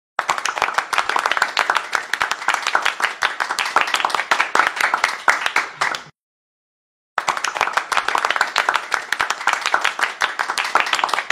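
Applause: many hands clapping in a dense patter. It fades out about six seconds in, cuts to silence for about a second, then starts again.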